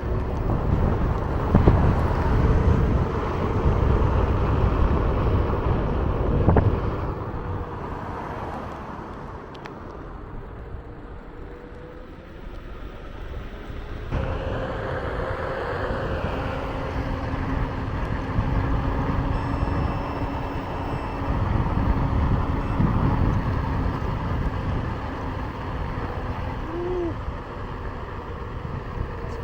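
Onewheel GT electric skateboard riding along: a low rumble of the wheel rolling and wind on the microphone, with a thin steady whine from the hub motor in the second half.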